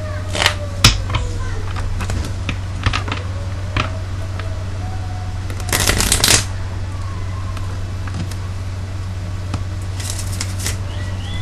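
A deck of playing cards being riffle-shuffled: a dense riffle of cards about six seconds in, and a shorter one near the end. Scattered single card clicks and taps come near the start.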